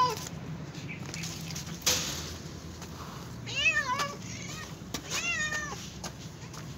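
Kittens meowing, begging for chicken bones: two meows about a second and a half apart in the second half, each rising then falling in pitch, and the tail of another right at the start. A short burst of noise comes near two seconds in.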